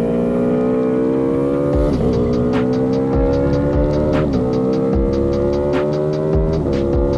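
Aprilia Tuono V4 Factory's V4 engine pulling hard under acceleration, rising steadily in pitch and dropping sharply at three quick upshifts, about two, four and a half and six and a half seconds in. A music beat comes in behind it about two seconds in.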